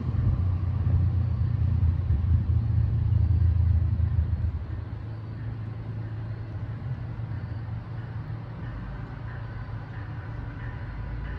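Low, steady mechanical rumble, loud for about the first four and a half seconds and then dropping to a softer rumble.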